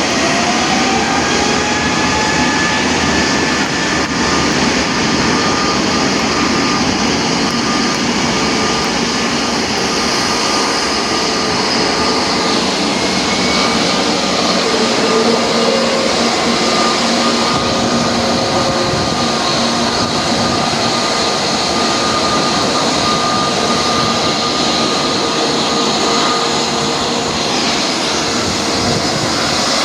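Jet aircraft engines running steadily: a constant rush with high steady whining tones, one tone rising over the first couple of seconds.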